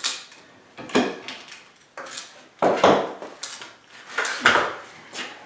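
Crescent indexing bull bar prying double-nailed solid-oak pallet boards: about six sharp cracks, knocks and creaks as the steel fork levers the boards and the nails give way in the wood.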